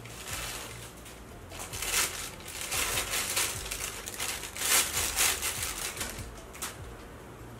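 Bubble wrap and a thin plastic bag crinkling and rustling as they are pulled off a small camera lens, in a run of irregular crackly bursts that is loudest a little past the middle.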